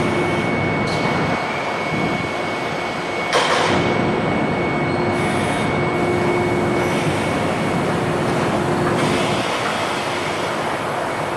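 Fiber cement board demoulding machinery running: steady machine noise with a thin, steady high whine, and a sharp clank about three and a half seconds in.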